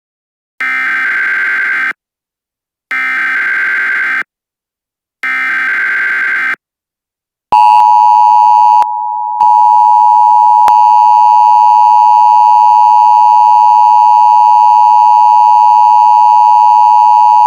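Emergency Alert System tones: three short SAME header data bursts of warbling digital tones, about a second each, then the loud, steady two-tone EAS attention signal begins, dipping briefly once shortly after it starts.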